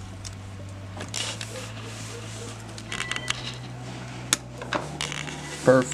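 Hands fitting small 3D-printed plastic parts onto a carbon-fibre quadcopter frame: scattered rustling and scraping of plastic on plastic and carbon, with light clicks and one sharp click about four seconds in.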